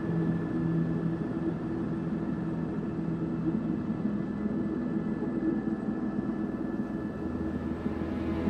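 Tour helicopter in flight: a steady rumble of rotor and engine, with a faint steady high tone above it.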